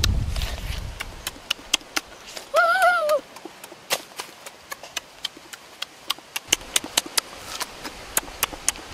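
Close-up eating sounds: sharp, irregular crackling clicks of crunchy roasted bird skin being bitten and chewed, a few a second. About three seconds in there is a brief high-pitched tone that rises and falls.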